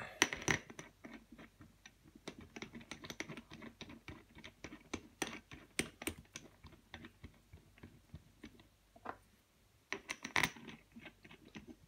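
Bolts being turned in by hand and fitted into a machined aluminium block: a run of light metallic clicks and ticks. After a short pause, a denser cluster of clicks comes near the end.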